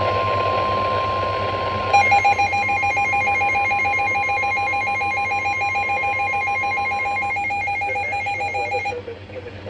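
NOAA Weather Radio's steady single-pitch alert tone (about 1050 Hz), the signal that a warning is about to be broadcast. About two seconds in, a fast pulsing electronic beeping with several pitches joins it. The steady tone stops near seven seconds and the beeping a couple of seconds later.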